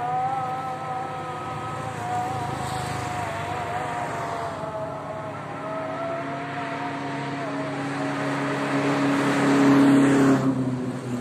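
A car driving along a highway and passing close by, its tyre and engine noise building gradually to a peak about ten seconds in, then falling away sharply as it goes past.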